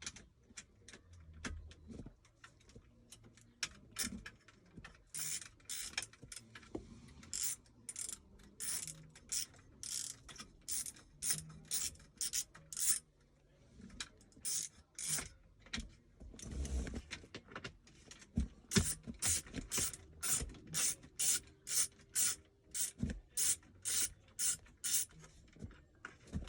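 Socket ratchet wrench with an extension backing out a 7 mm screw: rasping ratchet clicks on each swing, about two strokes a second, with a short pause about halfway through.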